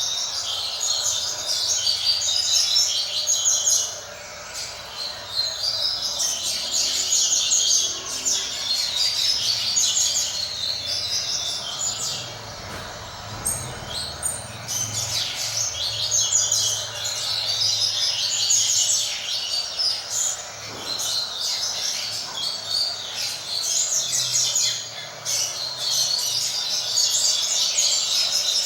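Coleiro (double-collared seedeater) singing: fast, high twittering phrases a few seconds long, repeated again and again with short pauses between them.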